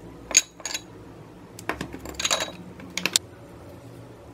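Plastic tubes and bottles handled on and lifted off a glass bowl. Sharp clicks and knocks come in three short clusters: about a third of a second in, around two seconds, and around three seconds.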